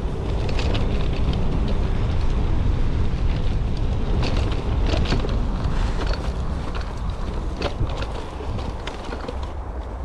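Bafang BBS02 e-bike ridden off-road: wind rumbling on the microphone, with scattered sharp clicks and rattles from the bike over rough ground.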